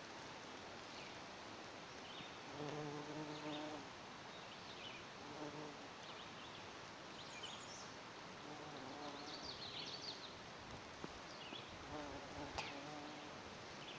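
Bumblebee buzzing, a low hum that comes and goes in several short spells as it flies from flower to flower.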